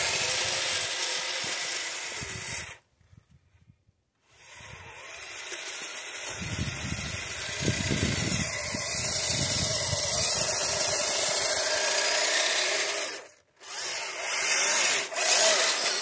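Twin Traxxas Titan 380 electric motors and geartrain of a Kyosho Blizzard radio-controlled tracked snow vehicle whining like a drill as it drives and plows snow with its blade. The whine cuts out for about a second and a half about three seconds in and briefly again near the end as the throttle is let off.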